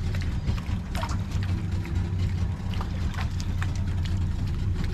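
Fishing boat's engine running with a steady low hum, with scattered short clicks over it.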